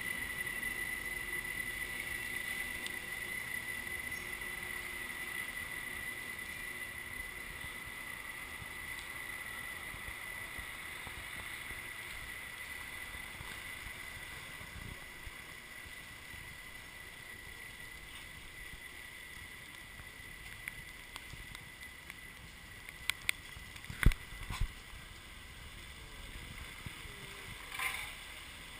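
A vehicle driving slowly, its steady running and road noise heard from inside the cabin. A steady high whine fades away over the first half, and a few sharp knocks come near the end.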